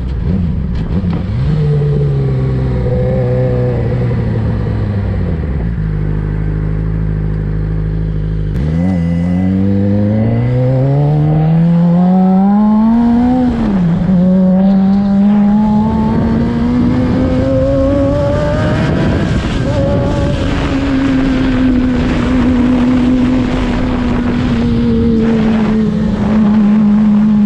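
2007 Suzuki GSX-R600 inline-four running under way: it pulls up through the revs, drops sharply at a gear change about halfway through, climbs again and then holds a steady cruise. Wind rushes over the microphone throughout.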